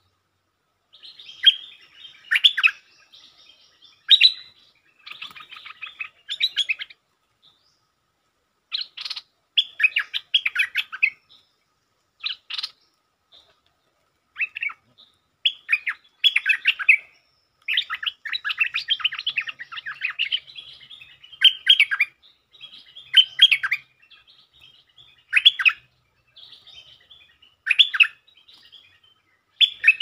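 Merbah lekir bulbuls calling: short bursts of quick, chattering notes repeated every second or two, with a longer run of chatter about two-thirds of the way through. This is the call used to lure wild birds to a decoy cage.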